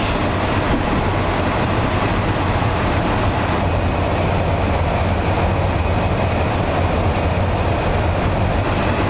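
Steady in-flight cabin noise of a KC-135 Stratotanker: airflow and jet engine noise under a constant low hum.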